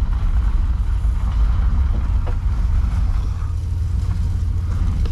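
Steady low rumble of a 1970 VW Beetle being towed along, rolling on three wheels with one wheel held by a seized brake.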